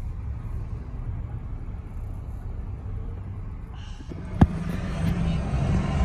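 Steady low rumble of a car being driven, heard from inside the cabin. About four seconds in, a single sharp click, after which the road noise grows louder and fuller.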